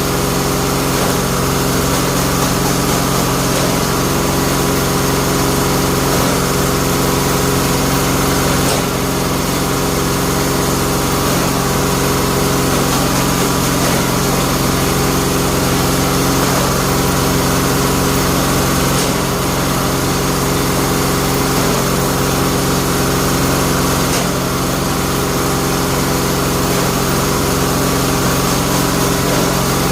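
Bamboo-splitting machine's motor running steadily with an even hum.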